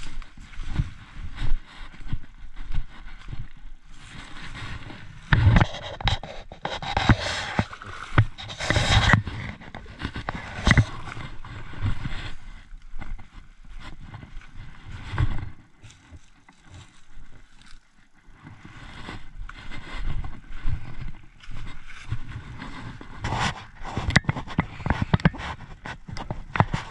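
Handling noise from a body-worn camera while walking through forest undergrowth: a jacket rustling and scraping against the microphone, with irregular footsteps and knocks.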